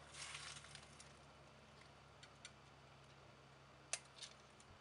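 A bow shot in near silence: a single sharp snap near the end as the string is released, then a softer tick a moment later.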